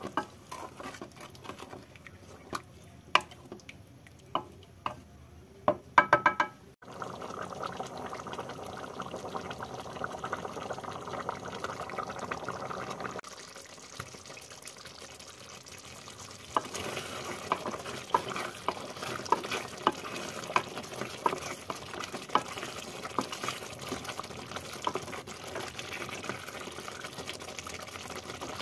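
Thick curry gravy with paneer cubes simmering and bubbling in a metal pot while a wooden spatula stirs it. There are sharp knocks of the spatula in the first few seconds, then a steady bubbling with small clicks.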